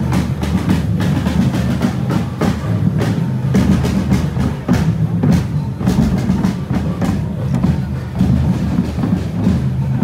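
Drums of a marching parade band playing, with frequent sharp strikes over a dense low rumble of bass drums.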